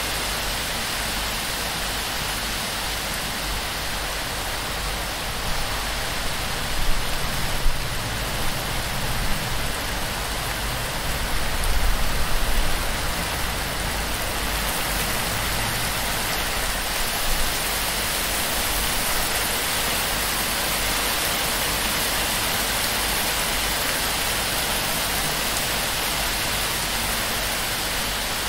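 Heavy torrential rain pelting a palm-thatch roof, with water streaming and dripping off the frond edges in a steady, dense hiss. A few brief louder low rumbles come near the middle.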